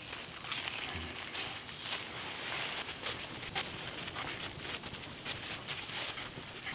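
A folded strip of thin plastic grocery bag crinkling and rustling as it is twisted and pulled through the mouth, stretching into a single strand of plastic cord, with a steady run of small crackles.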